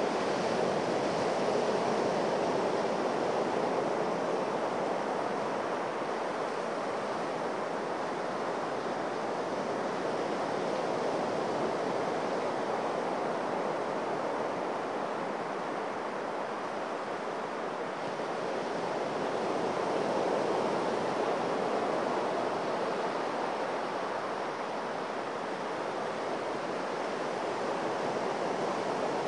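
Sea surf washing steadily onto a sandy beach, swelling and easing slowly as the waves come in.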